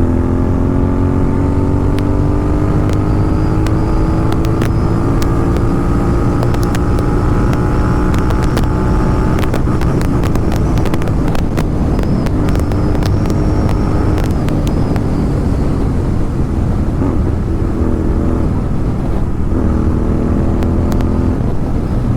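Royal Enfield Continental GT 650's parallel-twin engine, breathing through a Red Rooster aftermarket exhaust, pulling hard with its note climbing steadily for about nine seconds. When the throttle is rolled off, a rapid run of exhaust crackles and pops on the overrun follows for several seconds. Near the end the engine picks up again at a lower note.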